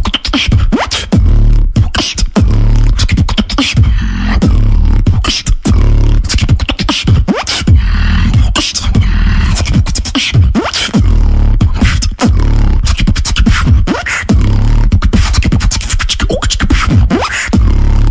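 Solo human beatboxing: fast, dense mouth-made drum sounds of kicks, snares and hi-hats over a deep bass that runs almost without a break.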